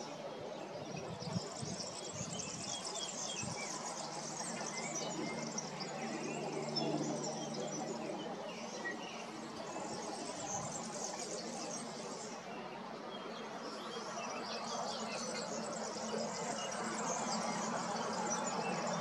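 Outdoor ambience of insects chirping and small birds calling over a steady low hum, with one brief knock just over a second in.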